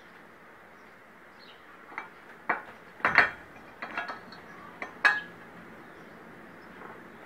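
Steel gear and shaft clinking and knocking against a steel gearbox housing as the gear is fitted inside it: a string of sharp metallic clinks, the loudest about three and five seconds in.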